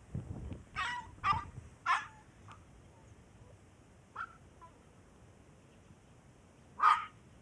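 A puppy yapping in short, high-pitched yaps: three in quick succession, a fainter one a couple of seconds later, and the loudest near the end.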